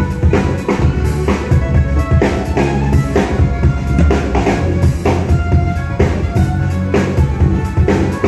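Live band music: fiddle and mandolin playing a tune together over a drum kit keeping a steady, driving beat.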